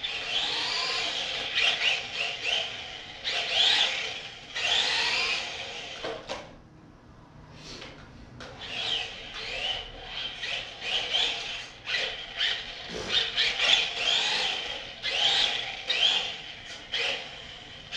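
Electric motor of a 1/18-scale LaTrax RC car whining up and down in pitch as it speeds up and slows again and again, with its tyres rubbing on a hardwood floor. The motor drops off to a short lull about six seconds in, then starts again.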